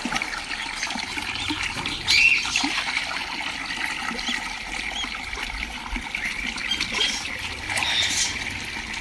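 Budgerigars chirping and chattering: a few short, sharp chirps about two seconds in and again near the end, over a continuous crackly chatter.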